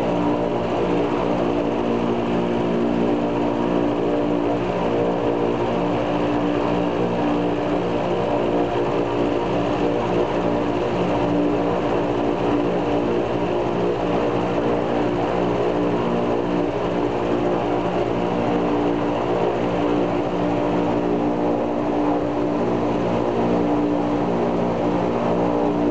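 Ilyushin Il-14's left engine, a 14-cylinder ASh-82T radial, running steadily during a ground run-up, heard from inside the cockpit. It is a continuous drone whose pitch and loudness stay constant.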